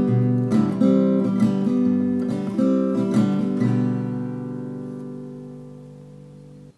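Closing bars of a song's acoustic guitar accompaniment: a few strummed chords, then a last chord left ringing and slowly fading for about three seconds before it cuts off abruptly.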